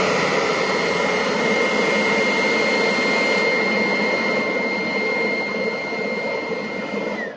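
Electric ducted fan on a homemade exoskeleton suit running at full speed: a loud, steady rush with a high whine that falls in pitch as the fan winds down near the end. It has been switched on unintentionally by a scrap overlapping the suit's power switch.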